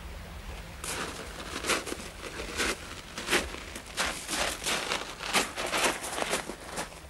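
A string of irregular short crunching, rustling noises, a few a second, over a faint low hum.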